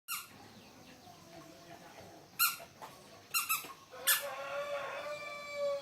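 High-pitched squeaky calls from a small animal: four short calls spaced through the first four seconds, then one long drawn-out call.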